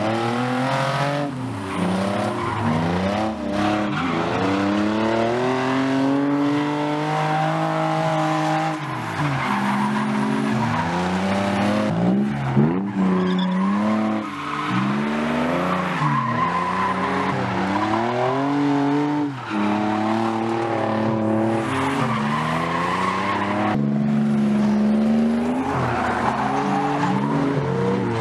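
Nissan 350Z's V6 engine revving up and down over and over while drifting, with its rear tyres squealing and skidding on the asphalt.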